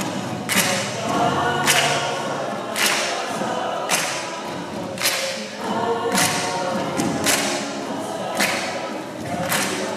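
Group of voices singing together as a chorus, with a sharp hit on the beat about once a second.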